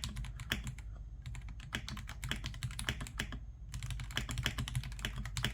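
Typing on an RK Royal Kludge M75 mechanical keyboard: quick runs of keystroke clicks with a couple of short pauses, not too loud.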